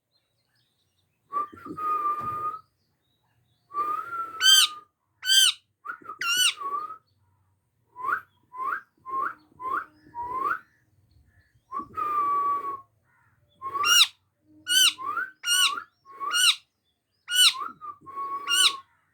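Pet parrot whistling: a string of short rising whistles, about two a second, broken by a few longer level notes held for about a second.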